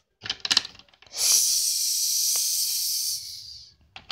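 A long, loud hiss made with the mouth as a play sound effect, starting about a second in, lasting about two and a half seconds and trailing off. A couple of short mouth noises come just before it.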